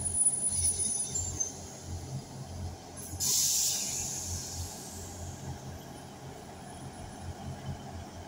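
Class 159 diesel multiple unit standing at the platform, its Cummins diesel engines idling with a low, pulsing throb. About three seconds in there is a hiss of compressed air lasting about a second.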